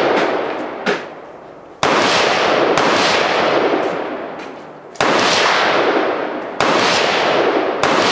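Pistol fired shot by shot in a 3-gun competition stage, about six shots at uneven spacing of one to two seconds, each followed by a long echo rolling off the range.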